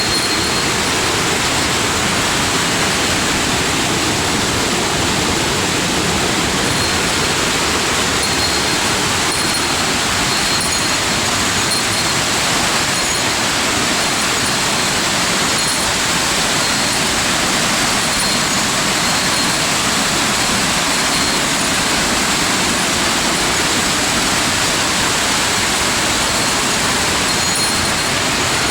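Waterfall in a mountain gorge: a loud, steady rush of falling water that does not change.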